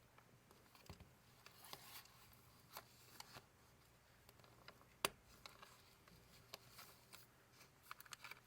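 Quiet handling of a paper-crafted ring binder: soft paper rustles and small clicks, with one sharper click about five seconds in.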